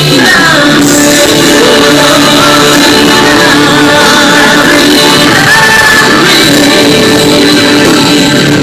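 Loud, continuous music with singing voices and long held notes.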